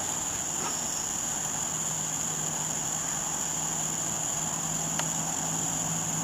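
A steady, high-pitched chorus of summer insects, crickets or katydids, with a low steady hum underneath that grows stronger toward the end.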